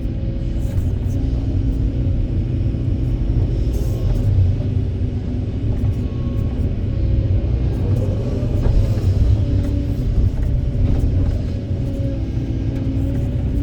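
Kobelco SK200 excavator's diesel engine running under load, with a steady deep rumble and a pitched hydraulic whine that shifts as the machine works.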